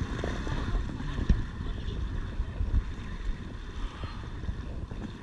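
River water rushing around a raft, with wind buffeting the microphone in irregular low thumps.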